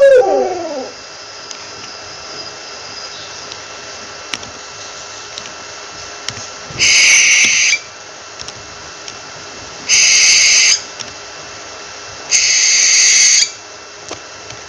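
Owl giving three harsh, hissing shrieks, each about a second long and a few seconds apart, after a short falling call right at the start.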